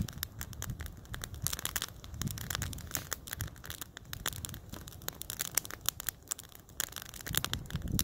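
Small campfire of dry sticks, laid in a teepee, crackling steadily with frequent sharp pops and snaps.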